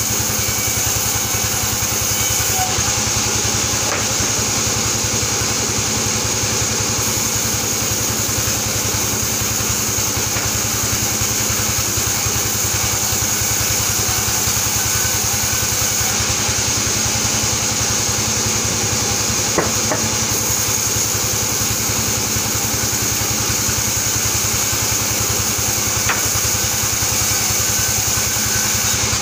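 Vertical band sawmill running and ripping albasia planks lengthwise: a steady high whine over a dense low machine drone, with a few faint sharp clicks, the loudest about two-thirds of the way through.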